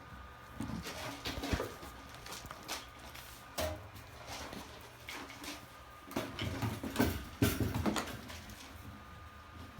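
Hovawart puppies moving about, making a scatter of irregular clicks, soft knocks and rustles.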